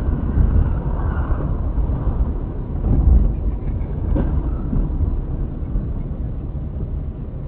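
Moving car's road and engine noise, a steady low rumble that eases slightly toward the end.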